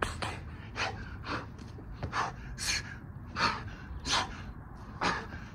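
A man breathing hard in quick, sharp gasps, roughly two breaths a second, from the exertion of doing burpees.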